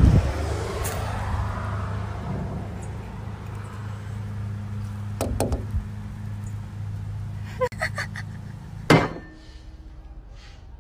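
A steady low machine hum with a couple of light clicks, cut off by a sharp knock about nine seconds in.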